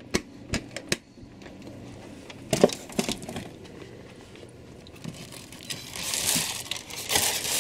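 Clear plastic bag crinkling as hands handle a bagged statue in its styrofoam packing, building up and loudest near the end. A few light clicks come in the first second and a single knock about two and a half seconds in.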